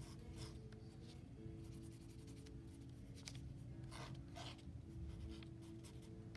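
Faint scratching strokes, a few of them spread over several seconds, over a low steady hum.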